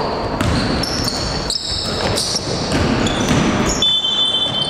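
Basketball game play in a reverberant gym: the ball bouncing on the hardwood court and sneakers squeaking in short high chirps, with a longer squeak near the end.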